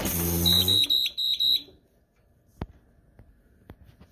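ParaPac transport ventilator's alarm sounding briefly as the unit is switched on: a low buzz with about five quick high beeps, lasting about a second and a half. A few faint clicks follow.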